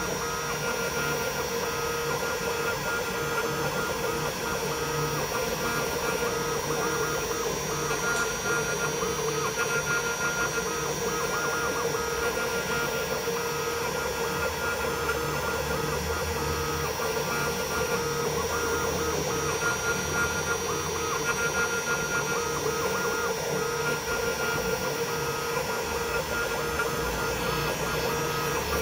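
Small 4-axis CNC milling machine carving wax: a steady, high spindle whine, with the stepper motors warbling as the axes move.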